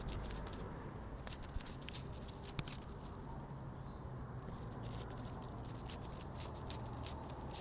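Fluttering-wings sound effect meant as a butterfly flapping: irregular, quick soft ticks and patters over a low, steady rumble.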